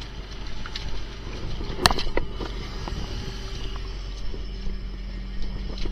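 Fishing boat's engine running steadily under the deck work, with a few sharp knocks as gear and fish are handled. The loudest knock comes about two seconds in, and a second follows shortly after.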